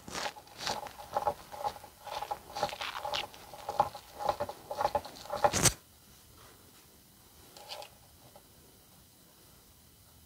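Pan head screw being turned by hand with a screwdriver through a steel Lazy Susan plate into MDF: a run of short scratchy turns that cuts off suddenly about six seconds in. After that, only faint handling sounds.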